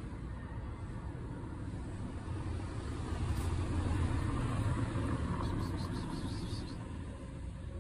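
Low rumble of a passing road vehicle, swelling to its loudest about four seconds in and then fading.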